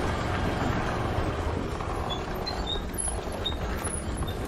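Suzuki Access 125 scooter's single-cylinder four-stroke engine running steadily as the scooter is ridden, with road noise.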